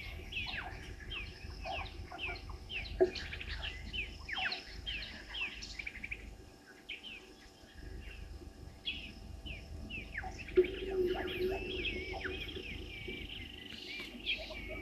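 A chorus of many wild birds chirping and singing, with short, overlapping high calls throughout. A lower, steadier call joins about two-thirds of the way through.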